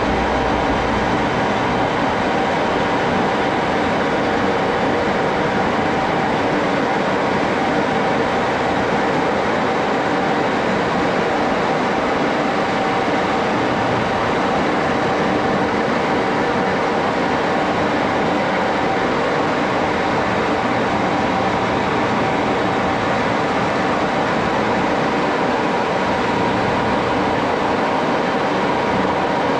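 1941 Axelson engine lathe running steadily under power, a constant mechanical noise with a steady whine in it.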